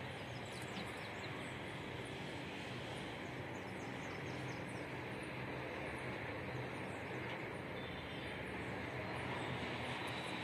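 Steady outdoor background noise with a low hum beneath it and faint, short high chirps scattered through.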